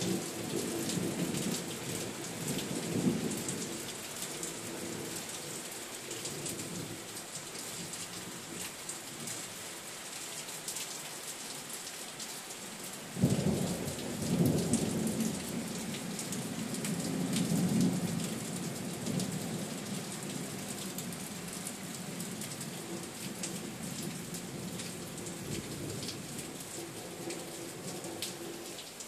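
Thunderstorm: steady rain hiss with rolling thunder. A rumble fades over the first few seconds, then a sudden crack about 13 seconds in rolls on for several seconds before dying back into the rain.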